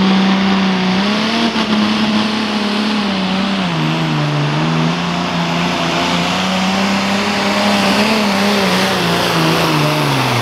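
Ford 9600 pro farm pulling tractor's diesel engine running flat out under the load of the pulling sled, its pitch wavering up and down, dipping about four seconds in and dropping away near the end.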